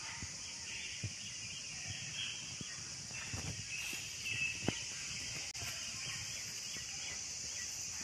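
Outdoor farm ambience: a steady high-pitched hiss with scattered soft knocks, and a brief high chirp about four and a half seconds in.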